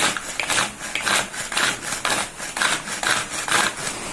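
Hand-operated food chopper worked in quick repeated strokes, about two a second, its blades mincing fried fish with onion and green chillies.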